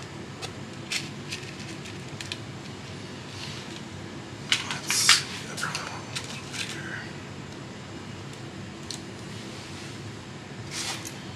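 Small steel cotter pins clicking and rattling in a plastic assortment box as they are picked out by hand, with a cluster of sharper clicks about five seconds in.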